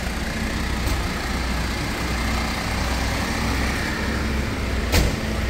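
Parked fire engine's diesel engine idling with a steady low rumble. A single sharp knock comes about five seconds in.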